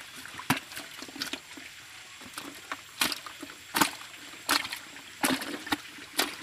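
Live baung catfish thrashing in a plastic bucket of shallow water as they are handled, making several sharp splashes at irregular intervals.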